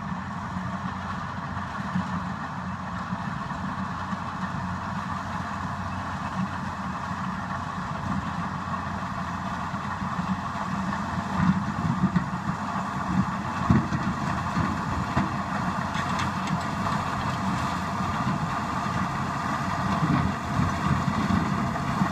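Caterpillar D6H LGP crawler dozer's six-cylinder turbocharged diesel running steadily while the machine tracks forward pushing its blade, getting louder over the second half as it comes closer, with a few sharp clanks.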